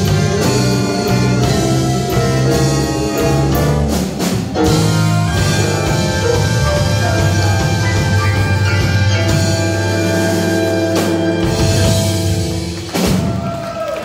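Live big band playing an instrumental passage, with the horn section holding chords over bass and drums. The music drops away about a second before the end.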